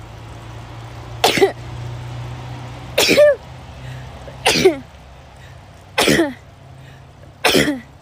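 A woman sneezing five times in a row, about one and a half seconds apart, each a sharp burst with a short voiced tail. The sneezes are set off by looking into bright sunlight, the photic sneeze reflex.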